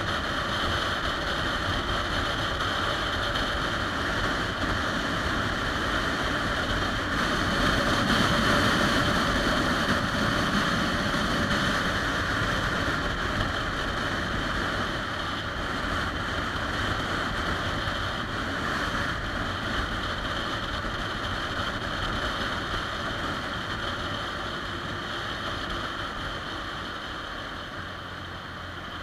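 Motorcycle cruising on the open road, heard from a handlebar-mounted camera: a steady rush of wind and road noise over the engine running. It swells a little about eight to eleven seconds in and eases off near the end.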